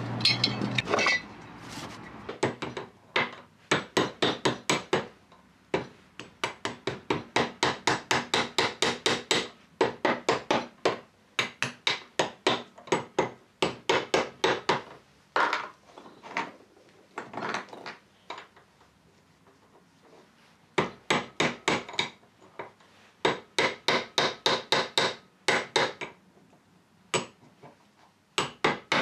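A gas burner's steady roar cuts off about a second in. Then a hand tool works a freshly cast lead fishing weight held on a bench vice, trimming it, in runs of quick, short strokes about three or four a second with short pauses between the runs.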